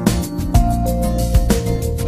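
Instrumental background music with sustained notes over a steady beat.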